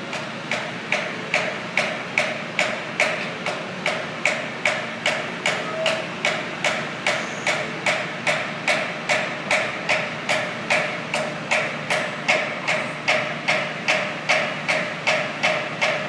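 Even, rhythmic ticking from a Cat LP-gas forklift, about two and a half sharp ticks a second, each with a short ring, over the steady running of the machine while its mast is raised high.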